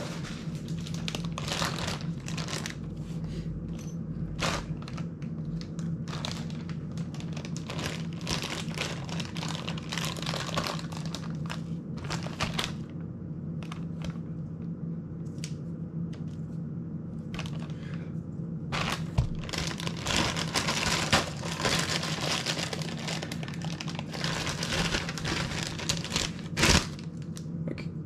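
Small clicks and knocks of plastic drone parts being handled, giving way in the second half to a clear plastic parts bag crinkling, with a few sharper knocks. A steady low hum runs underneath.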